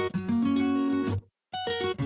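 Background music of strummed acoustic guitar, in short phrases that stop abruptly, with a brief silent gap a little over a second in.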